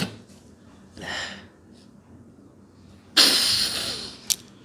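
A person sniffing sneezing powder up the nose: a short breath about a second in, then a loud, sharp sniff about three seconds in that lasts about a second and fades, followed by a brief click.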